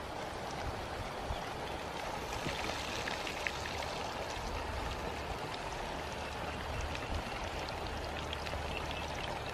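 Breaded chicken leg pieces deep-frying in a pan of hot oil: a steady sizzle with scattered small crackles and pops.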